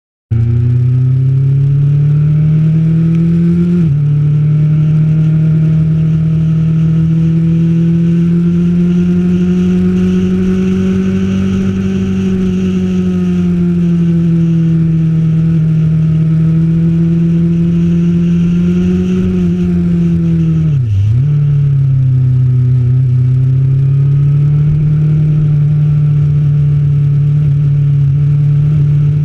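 Motorcycle engine running under way on the road, its pitch rising and falling gently with the throttle. About four seconds in the pitch drops suddenly, as on an upshift, and about twenty-one seconds in it dips briefly and comes back up.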